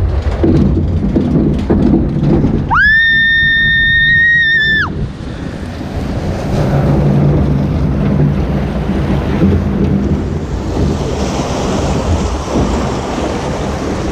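Water coaster boat rumbling down its track, with a high shriek held for about two seconds partway down the drop. Then the boat hits the water: a loud, steady rushing splash of churning water and falling spray.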